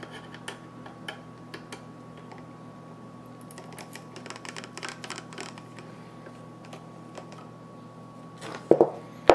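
Small screwdriver backing a tiny screw out of a graphics card, making light scattered clicks and ticks over a steady faint hum. A few louder knocks near the end as the tool and card are handled and set down.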